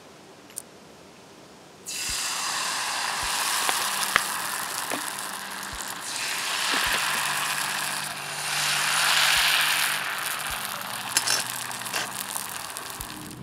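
Pancake batter sizzling as it is poured into hot oil in a cast iron skillet, starting suddenly about two seconds in and swelling twice as more batter goes in, with scattered small clicks.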